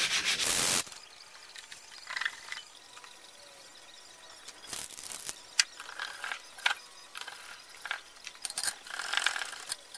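Hand sanding on a fiberglass landing-gear leg for under a second, then scattered small clicks, rattles and scrapes of parts and hand tools being handled against the gear leg.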